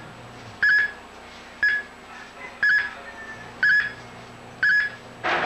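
Quartz watch analyzer's tester beeping, a short high beep about once a second, in the changed tone that goes with all of its LEDs flashing, its audible read-out of the watch circuit under the probes. Near the end there is a brief rustling burst.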